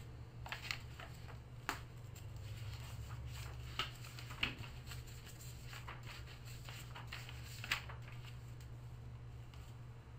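Faint scattered clicks and rustles of handling at a desk, about half a dozen in all, over a steady low hum.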